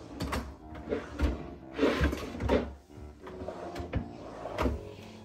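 Drawers of a bedroom drawer unit being pulled open and pushed shut, with a string of knocks and clatters as the contents are rummaged through. Faint background music runs underneath.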